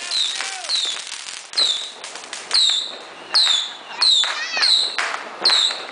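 Fireworks going off in a quick series of sharp pops, each with a short falling whistle, about one every half second to a second; one whistle rises instead, a little past the middle.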